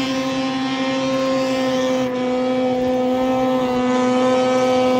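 Snowmobile engine held at steady high revs as the sled skims across open river water, one unchanging note that grows slowly louder as it comes closer.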